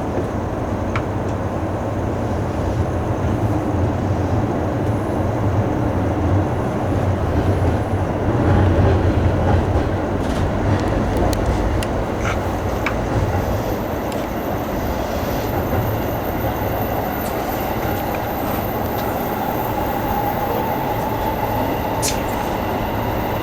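Electric commuter train running, heard from inside the passenger car: a steady rumble of the running gear with occasional clicks, swelling a little midway, and a faint whine that comes in during the second half.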